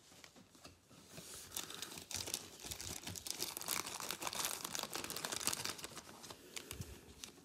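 Crinkling and rustling of glossy basketball trading cards being handled and sorted in the hands, a dense run of small crackles and clicks that thins out near the end.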